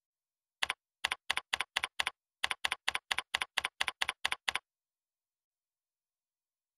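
Computer keyboard typing: about sixteen quick keystrokes at an even pace, each a short press-and-release click, stopping about two-thirds of the way through.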